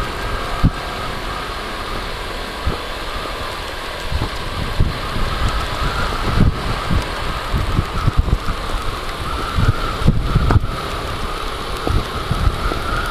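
Yamaha YBR 125's single-cylinder four-stroke engine running at cruising speed on the move, with a steady mid-pitched hum. Irregular low gusts of wind buffet the microphone.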